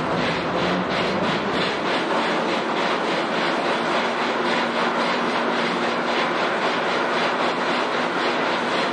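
Vertical lift bridge's hoisting machinery running as the road span rises: a loud, steady mechanical rumble with a faint regular clacking, and a low steady hum joining about four seconds in.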